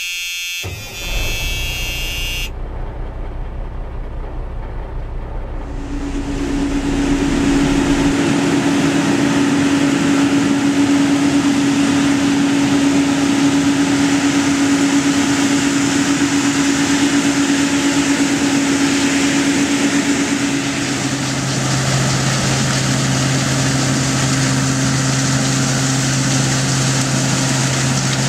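Hazelnut harvest machinery running: a low rumble, then from about six seconds in a loud, steady rushing noise with a constant hum. A deeper hum joins a little after two-thirds through.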